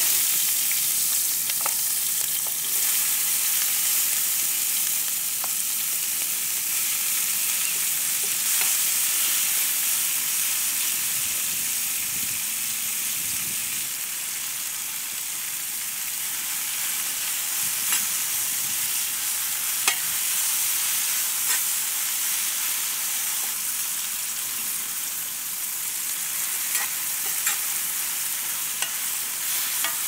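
Meat sizzling over a fire: a steady hiss of frying fat with a few sharp pops scattered through it.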